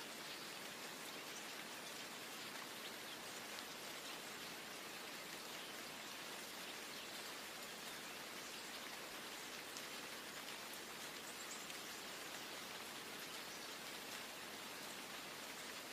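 Steady rain: an even hiss with a fine patter of individual drops.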